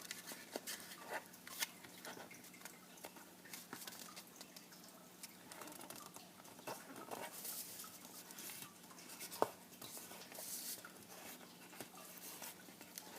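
Square origami paper being folded and creased by hand: faint rustling and crinkling with many small clicks, and one sharper crack about nine seconds in.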